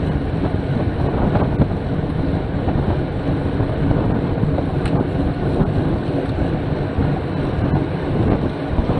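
Steady rumbling wind buffeting the microphone of a bike-mounted camera on a road bike riding at about 23 mph.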